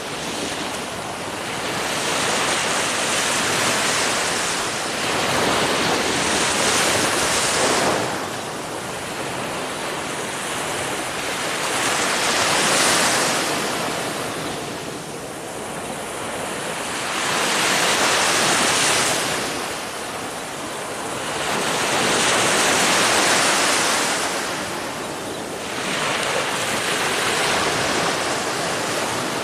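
Ocean surf: waves breaking and washing in, the rush swelling and fading about every four to five seconds.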